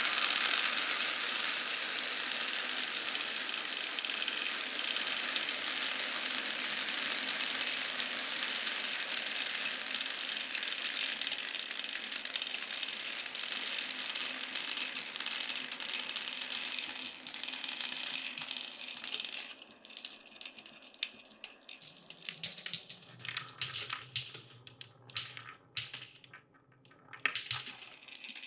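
Many marbles rolling and clattering together along a marble run track, a dense rushing rattle that thins after about 17 seconds into scattered separate clicks as the last marbles pass. A low hum joins for a few seconds after the twenty-second mark.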